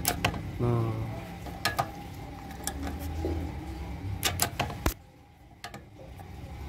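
Sharp clicks and taps of an aftermarket automatic fuel-tank lid on a Yamaha NMAX being shut and pressed down to latch, with a quick cluster of clicks about two thirds of the way through.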